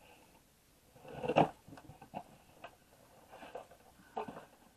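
Cardboard subscription box being opened and its contents handled. About a second and a half in there is one loud scrape or rustle of cardboard, then light rustling and small taps as a card is drawn out.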